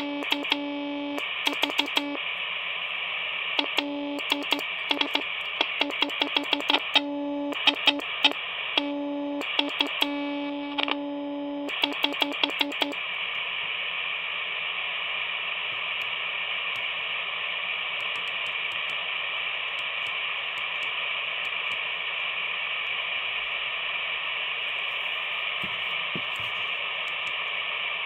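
Handheld VHF radio transceiver sounding a steady low CW sidetone over receiver hiss, broken by many sharp clicks. About 13 s in, the tone and clicks stop and only steady receiver static remains.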